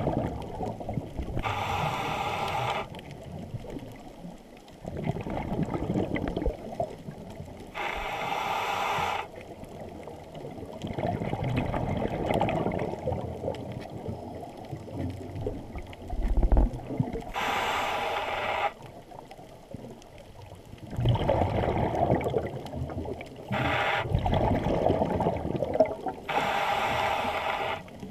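Underwater breathing through a scuba regulator: short hissing inhalations through the demand valve alternate with longer bubbling exhalations, in a slow cycle of about one breath every six seconds.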